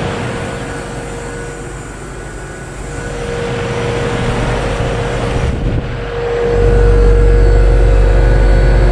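2-ton Trane XR11 heat pump outdoor unit running in heat mode: a steady hum from the compressor and fan with a constant tone. A deep rumble comes in about two-thirds of the way through, and the sound gets louder from there.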